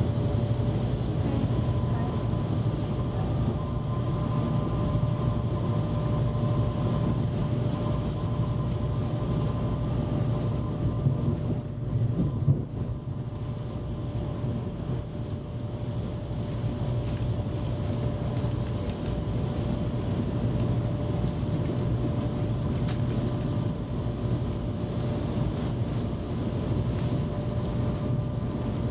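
Copenhagen S-tog electric commuter train running along the line, heard from inside the carriage: a steady rumble of wheels on rails with faint steady tones above it. A couple of louder knocks come near the middle.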